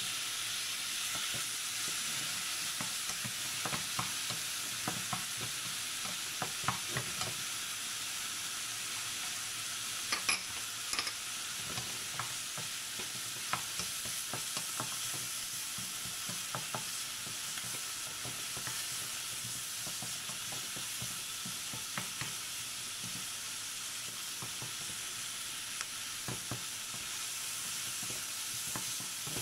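Chicken pieces with sliced onion and garlic sizzling in hot oil in a nonstick wok over a gas flame. A wooden spatula scrapes and taps against the pan at irregular moments.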